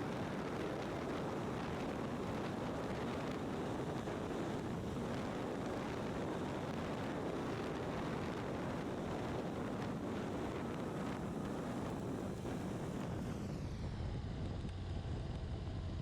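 Wind rushing over the microphone with road and engine noise from a BMW R1200RT motorcycle riding at highway speed in strong, gusty side winds. The upper hiss of the rush eases about thirteen seconds in.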